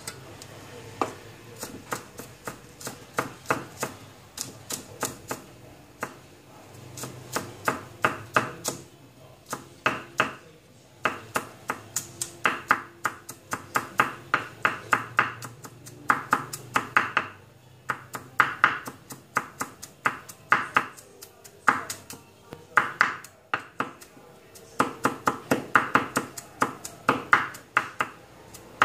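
Cleaver mincing garlic on a thick wooden chopping block: runs of rapid knocks, several strokes a second, broken by short pauses.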